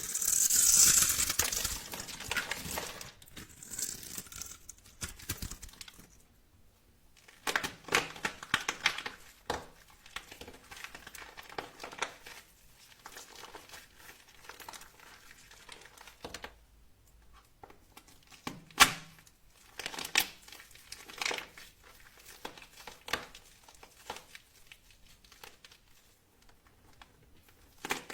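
Dry soap being cut and crumbled: a dense burst of crackling for the first couple of seconds, then scattered crackles and crunches with sharp clicks, one of them loud about two-thirds of the way through.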